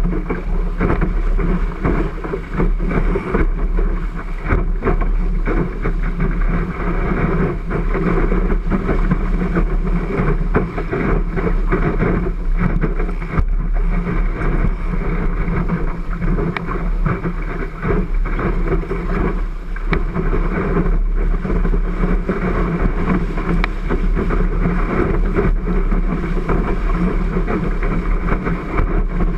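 Water rushing along the hull of a 12 ft Cherub skiff sailing fast downwind, with wind buffeting a GoPro's microphone. A loud, continuous, muffled rushing and rumble.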